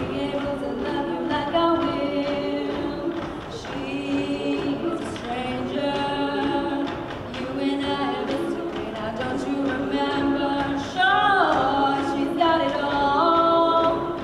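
Mixed a cappella vocal group singing, the backing voices holding chords under a female lead voice. About eleven seconds in the lead gets louder and bends and wavers in pitch.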